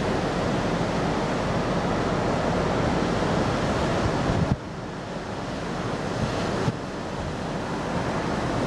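Ocean surf breaking along the shore, with wind buffeting the microphone. The noise drops sharply a little past halfway and comes back about two seconds later with a small click.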